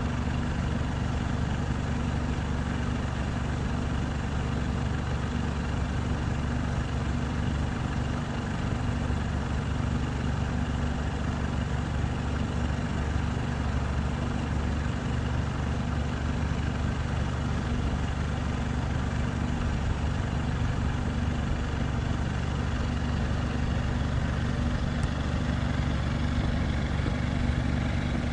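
An engine idling steadily: a constant low hum that holds the same pitch throughout.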